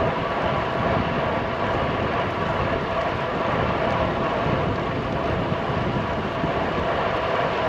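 Steady riding noise from a road bike on the road: wind and tyre rumble, with a faint steady hum and no break or change.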